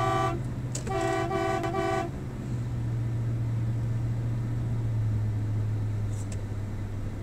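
Car horn honking: the end of one blast right at the start, then a second blast lasting about a second. Under it is the steady low hum of the moving car.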